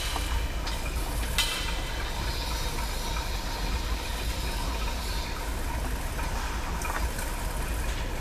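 Fuel line and fuel filter being pulled out through the fuel tank opening of a two-stroke leaf blower: a few small clicks and scrapes of handling over a steady low hum and hiss.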